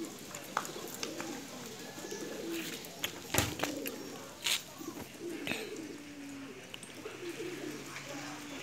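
Domestic pigeons cooing, low warbling coos repeated every second or two. A couple of sharp clicks cut in near the middle, the loudest thing heard.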